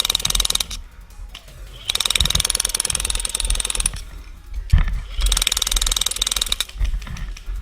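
Classic Army M134-A2 airsoft minigun firing in bursts of very rapid shots: one burst ends within the first second, then comes a burst of about two seconds, then one of about a second and a half, with short pauses between.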